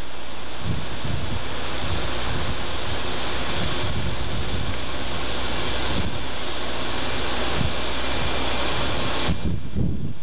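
Wind buffeting the microphone on a ship's open deck over a steady rush of the ship's machinery with a thin high whine. The rush drops away suddenly near the end, leaving mostly the wind.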